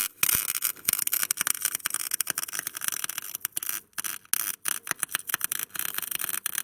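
Continuous hiss-like scraping of a tool on metal engine parts, dense with quick irregular clicks.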